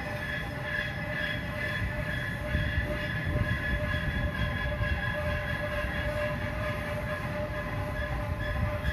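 Workshop machinery running steadily: a constant high, multi-toned whine over a rough low rumble.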